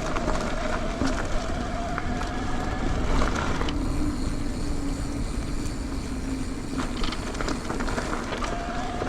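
Mountain bike rolling fast along a dirt trail: a steady rush of wind and tyre noise with a low rumble and a couple of faint humming tones. The higher hiss eases off about four seconds in.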